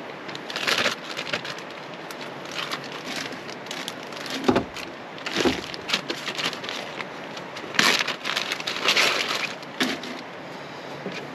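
Plastic bag rustling and crinkling in several short bursts as a baguette is handled in it and pulled out.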